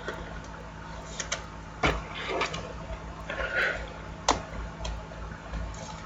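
Trading cards and plastic sleeves being handled: short soft sliding rustles and a few light clicks and taps, the sharpest about two seconds in and again about four seconds in.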